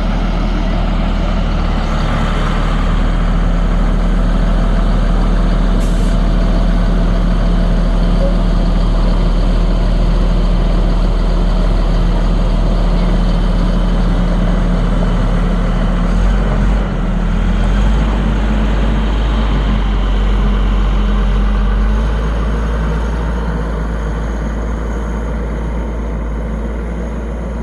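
A heavy vehicle's engine running steadily and loudly, its pitch stepping up about 17 seconds in and easing off again a few seconds later.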